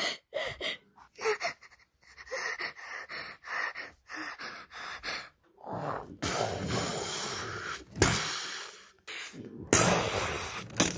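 A person gasping and panting in quick short breaths, then longer stretches of breathy rushing noise over the last few seconds.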